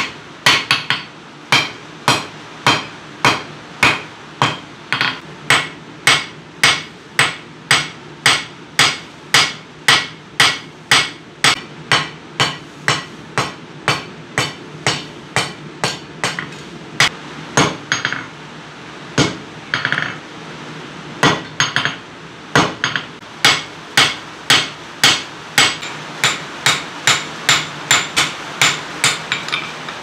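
Hand forging hammer striking a red-hot steel knife blade on an anvil, about two blows a second, each with a short metallic ring. The blows pause briefly a few times midway.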